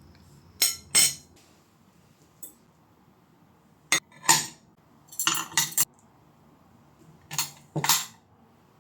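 Hard objects clinking and clattering as they are set down and knocked together, in four short groups of sharp knocks.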